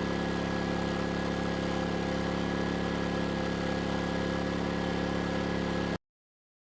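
Erayak 4500PD inverter generator's engine running steadily at an even pitch under a light 750 W load, during its break-in run. The sound cuts off abruptly about six seconds in.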